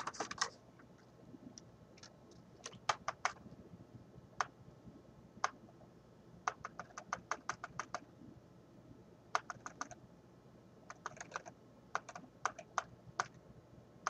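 Typing on a computer keyboard: light key clicks in irregular short runs, with pauses between.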